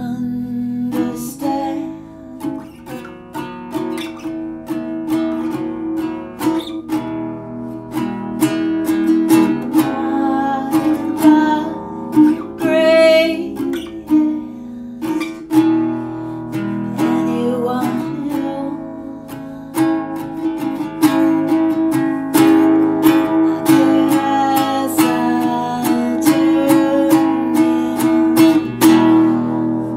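Song played on acoustic guitar, picked and strummed in a steady rhythm, with a voice singing in places, most plainly around the middle and near the end.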